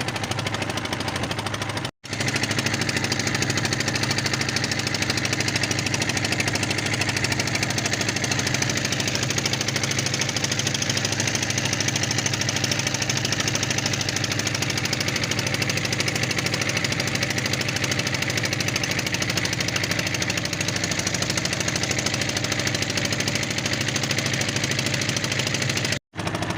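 A small boat's engine running steadily at close range, with a rapid knocking beat. The sound cuts out briefly twice.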